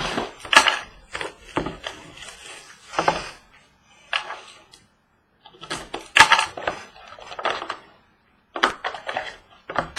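Trading card box being opened by hand: irregular crinkling, tearing and clicking of plastic wrap and cardboard, in short clusters with two brief silent breaks.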